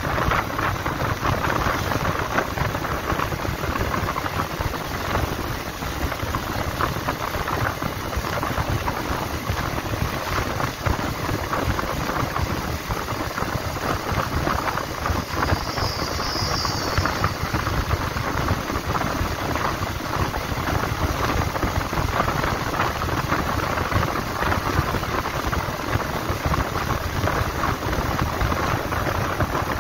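Steady wind rush on the microphone and road noise from a Bajaj Pulsar 150 motorcycle cruising at about 60–75 km/h, with its single-cylinder engine running underneath.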